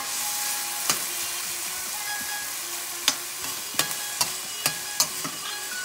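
Chopped onion, tomato, garlic and ginger sizzling in margarine in a stainless steel pan, while a metal spoon stirs them and clinks sharply against the pan about seven times.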